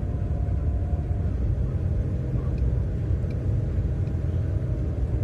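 Steady low road rumble inside a moving car, the engine and tyres heard through a dashcam's microphone.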